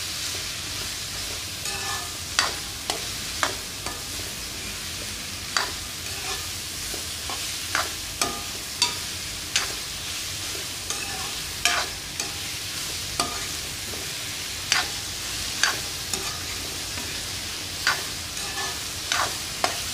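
Sliced onions, green chillies and coconut frying in oil in a kadai with a steady sizzle, while a steel ladle stirs them, clinking and scraping against the pan about once a second.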